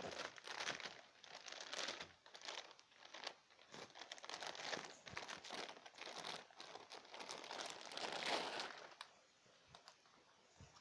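Packaging being handled and unwrapped, crinkling and rustling in irregular bursts, dying down about nine seconds in.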